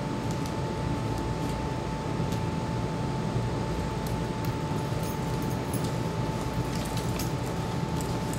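Steady low rumble and hiss of outdoor background noise, with a thin constant high tone running through it and a few faint ticks.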